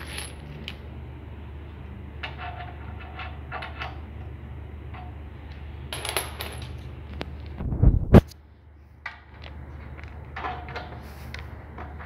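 Metallic clinks and rattles of braided stainless-steel flexible hoses and their nut fittings being handled, over a steady low hum. About eight seconds in there is a loud thump with a sharp click.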